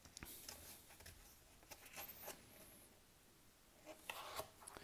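Near silence with faint rustling and a few light clicks of a card price ticket being handled and turned over in the fingers.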